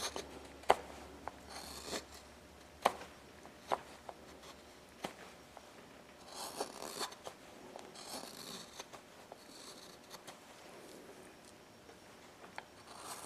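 Hand carving gouge slicing into a small wooden block: short scraping cuts with several sharp clicks scattered through.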